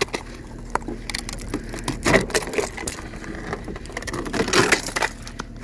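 Snow crunching and rustling as someone walks through it and handles it: irregular crunches, louder about two seconds in and again around four and a half seconds. A faint steady low hum runs underneath.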